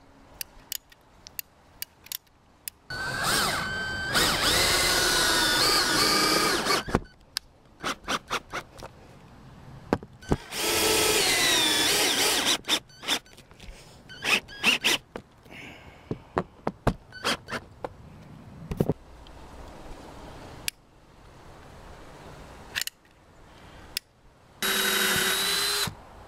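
Cordless drill driving screws through an aluminium solar-panel mounting bracket into the camper roof: three runs of the motor, the first and longest about three seconds in, a second about ten seconds in, a short third near the end. Short clicks and knocks come between the runs.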